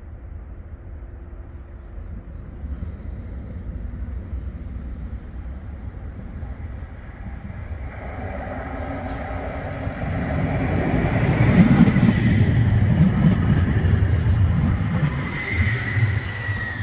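CAF Urbos tram approaching and running past on ballasted track. The rumble of its wheels on the rails grows from about halfway through and is loudest as it goes by in the last few seconds. A thin high whine runs through the loud part.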